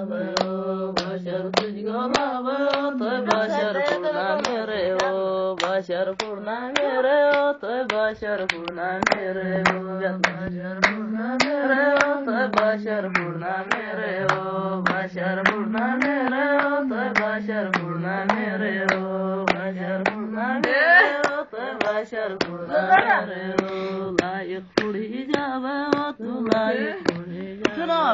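A folk song sung in a continuous, wavering melody over steady hand claps about twice a second.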